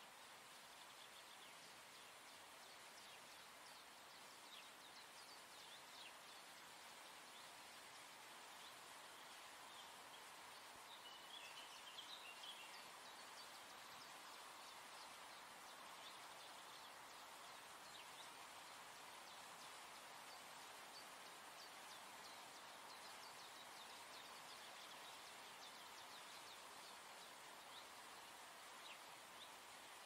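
Faint outdoor ambience: a soft steady hiss with scattered short bird chirps throughout and a brief flurry of twittering near the middle.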